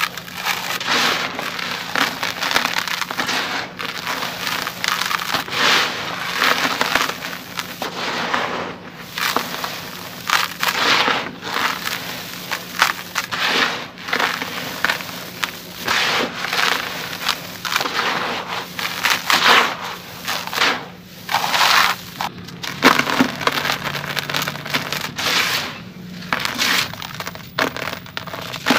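Dry sand-cement chunks crumbled and squeezed apart by hand, a gritty crunching in irregular bursts every second or two, with loose powder trickling back into the tub.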